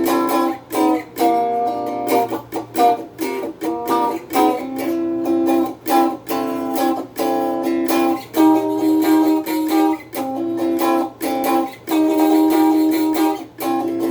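Donner DST-80 Strat-style electric guitar strummed in short, choppy chords through its small included practice amp, dry with no reverb. A faint steady low hum sits under the chords.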